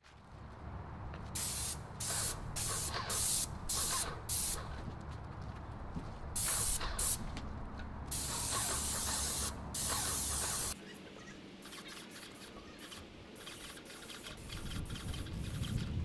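Titan 440 airless sprayer spraying oil stain in hissing bursts as the trigger is pulled and released, several short bursts at first, then longer passes of about a second each. A low hum runs underneath and cuts off about two-thirds of the way through.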